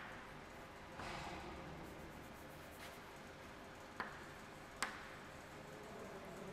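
Chalk writing on a blackboard: faint scratching strokes with a few sharp taps of the chalk against the board, two of them close together past the middle.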